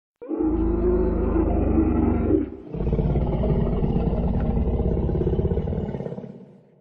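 Dinosaur roar sound effect: two long, low, rough roars. The first lasts about two seconds; after a brief break, the second lasts about four seconds and fades out near the end.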